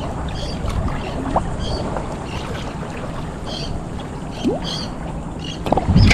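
Steady wind and water noise at the water's edge, with faint, short, high chirps repeating above it. It grows louder just before the end.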